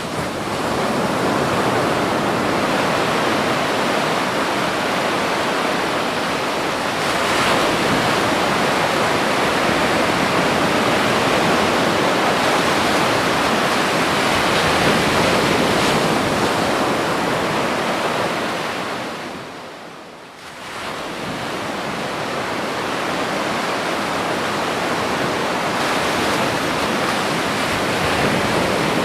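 Heavy ocean surf breaking, a loud continuous rush of waves with some wind on the microphone, dipping briefly about two-thirds of the way through.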